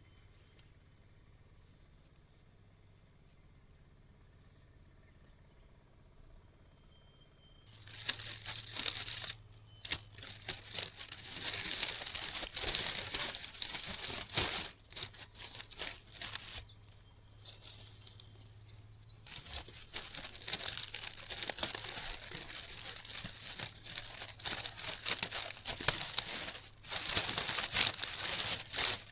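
Loud crackling, crinkling rustle that stops and starts, after several quiet seconds with a few faint high chirps.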